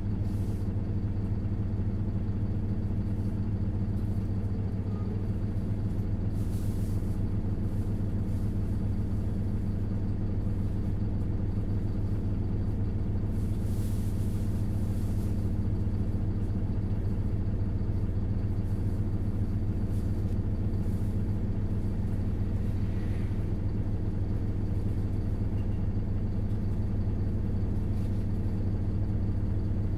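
Isuzu Erga city bus's four-cylinder diesel engine running steadily at an unchanging engine speed, a low drone heard from inside the bus.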